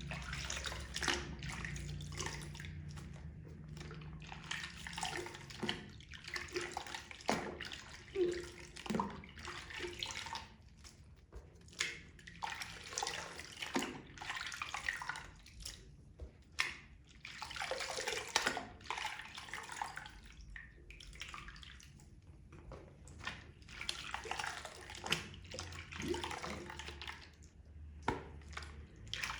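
Wet makeup sponges squeezed and rinsed in water, with irregular, repeated squelching swells and dripping.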